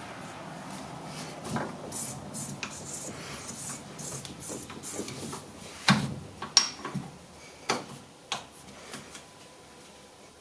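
Scattered metallic clicks and knocks of tools and lathe parts being handled and adjusted on a metal lathe, the sharpest knocks about six seconds in and again shortly after.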